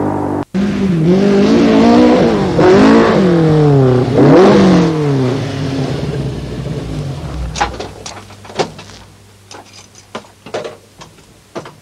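Nissan Pulsar's engine revving hard as it is driven on a dirt course, its pitch climbing and dropping several times, then dying away about six seconds in. Scattered light clicks and knocks follow.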